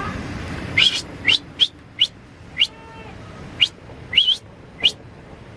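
A bird giving about eight short, rising chirps, irregularly spaced.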